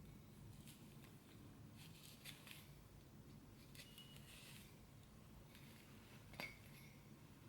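Near silence: room tone with a few faint small clicks and rustles from handling, the sharpest click about six and a half seconds in.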